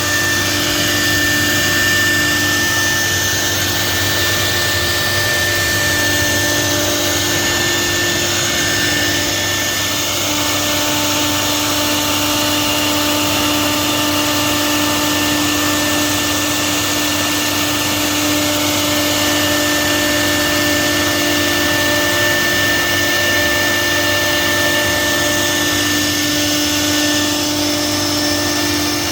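CNC router spindle running steadily with a high whine while routing a channel into 6mm clear acrylic.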